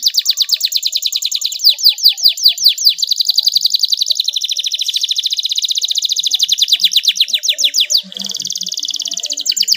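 Canary singing a long rolling song: unbroken trills of fast, repeated down-sweeping notes, about a dozen a second. The trill changes pattern several times and shifts to a new, lower roll about eight seconds in.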